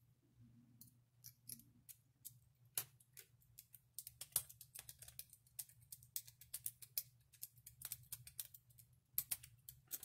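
Lock pick raking the pins in the keyway of a cheap laminated-steel pin-tumbler padlock: rapid, irregular light metallic clicks and scratches, starting about a second in and coming thickest from about four seconds in.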